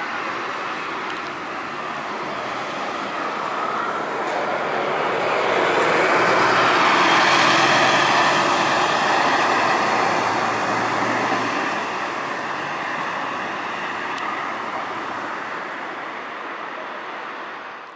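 Scania K360 coach's diesel engine pulling up a street under load. It grows louder as the coach passes, about seven seconds in, then fades as it drives away.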